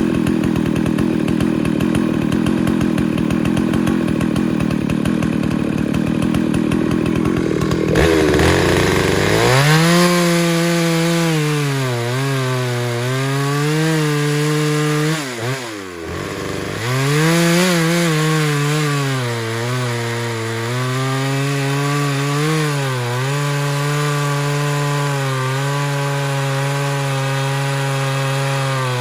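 Husqvarna 2100CD two-stroke chainsaw running hard through hardwood, its engine note sagging and recovering under load. The sound changes sharply about eight seconds in, and the note drops briefly near the middle before picking up again.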